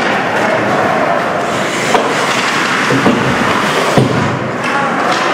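Ice hockey play in an arena: a steady din of skates on ice and spectators, with three sharp knocks of stick, puck or boards about two, three and four seconds in.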